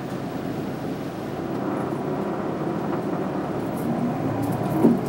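Inside a city route bus on the move: steady engine and road noise fills the cabin. There is one short knock near the end.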